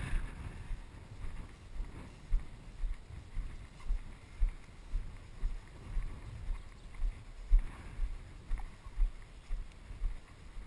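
Footsteps of a person walking steadily through knee-high wet pasture grass, heard as low thuds about two a second.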